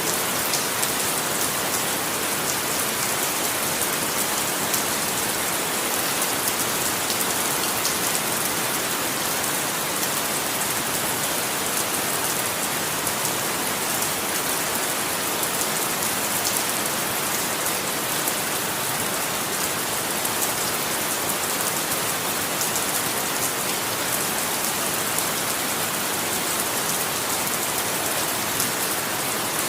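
Steady rainfall, a dense even hiss of raindrops with fine pattering, with no thunder or change in intensity.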